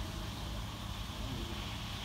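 Steady low rumble with a hiss: continuous background machinery-type noise with no distinct event.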